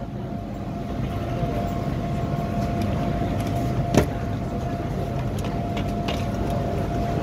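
MTR M-Train standing at a platform with its doors open: a steady low rumble from the train and station, with a faint continuous tone and one sharp click about four seconds in.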